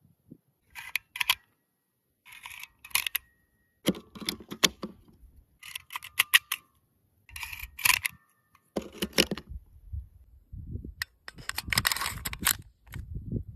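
Irregular sharp metallic clicks and clacks, some in quick pairs and a few followed by a short metallic ring, from hands-on handling of a Desert Eagle .50 AE pistol and its parts. A denser run of clattering comes near the end.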